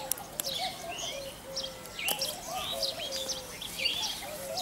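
Several birds chirping and calling: quick high chirps over a lower short call repeated about twice a second, with a few sharp clicks.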